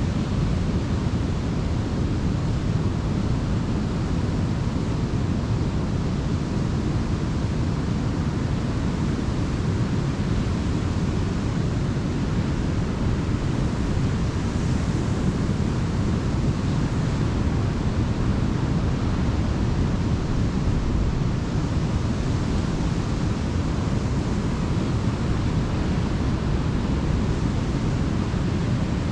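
Ocean surf on a beach: a steady, continuous wash of waves, heaviest in the low rumble, without distinct separate crashes.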